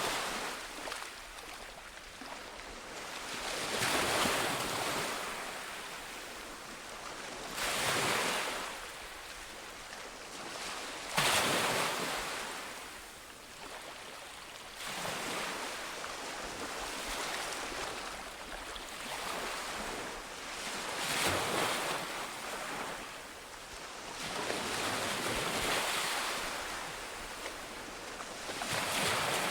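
Ocean waves breaking on a beach: a steady wash of surf that swells and falls away every few seconds, one wave arriving with a sudden crash about eleven seconds in.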